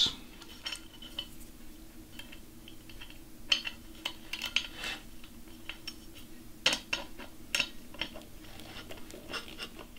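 Small metal clinks and taps of M5 bolts, nuts and a nut driver against an anodised aluminium CNC plate as nut blocks are loosely fastened on, scattered irregularly with a few sharper clicks.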